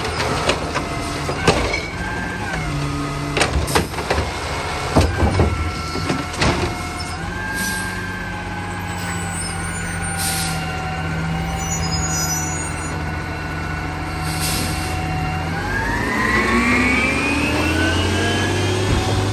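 Compressed-natural-gas automated side-loader garbage truck: clunks and knocks as the arm dumps a recycling cart and sets it back down, then the engine runs steadily. Near the end the engine revs up as the truck pulls away.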